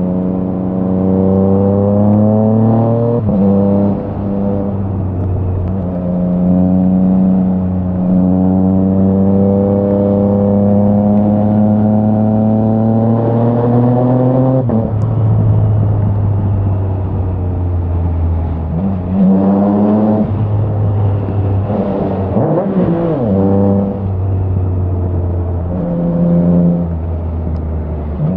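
2022 Triumph Trident 660's 660 cc inline three-cylinder engine through a Spark aftermarket exhaust, pulling hard with the revs climbing. About three seconds in, a brief cut and drop marks a quickshifter upshift. A long climb follows, ending in a sudden drop around halfway, then the engine runs lower with several short bursts of revs rising and falling.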